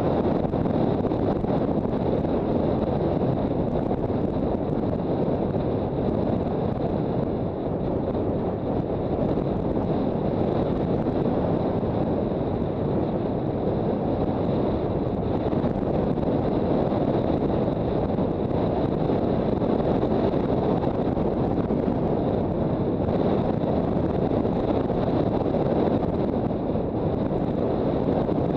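Steady wind rush on the microphone of a motorcycle riding at speed, a low even roar with no change in pace.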